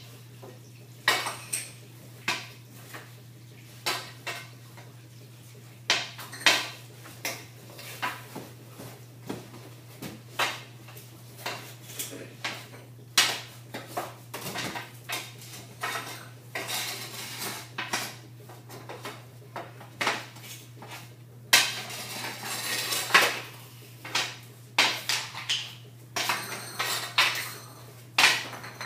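Hockey stick slapping and scraping on a concrete floor as pucks are shot, with pucks cracking and clattering off the net frame and nearby clutter. Sharp knocks come irregularly about every second, with a busier stretch of rapid clatter about two-thirds of the way in.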